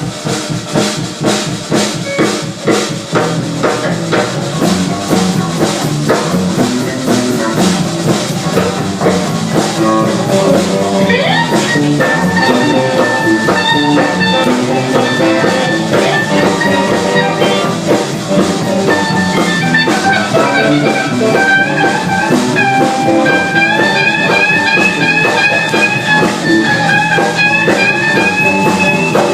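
Live band jamming in a blues-jazz vein: drum kit keeping a steady beat under electric guitar. About ten seconds in, a lead line of long held, wavering notes comes in, and it climbs higher in the second half.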